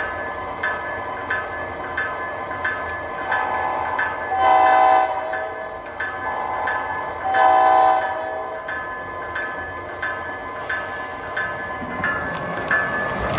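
MTH model diesel locomotives running, their onboard sound systems giving two short horn blasts, about four and a half seconds in and again about three seconds later. Under them is a steady running sound with a regular click about every two-thirds of a second.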